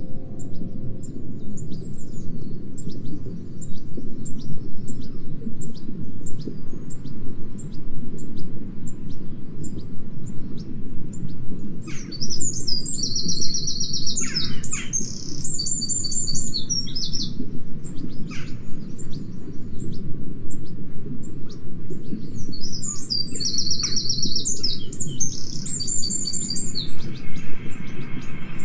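Songbirds singing: high short chirps repeating about twice a second, with two longer trilled song phrases about halfway through and near the end. Underneath runs a steady low rumble, the loudest sound.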